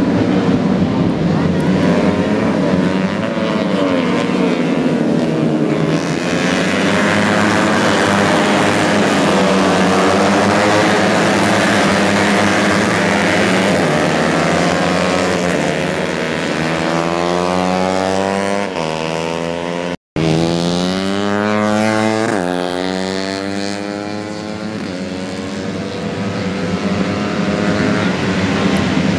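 Four-stroke racing motorcycles with bored-up 130cc engines passing at full throttle, the engine notes rising through the gears and falling away in pitch as each bike goes by. The sound cuts out for a split second about two-thirds of the way through.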